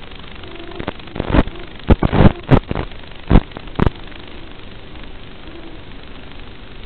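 Steady hiss of static from an FPV racing drone's analog video link, broken by a run of loud crackles and pops between about one and four seconds in.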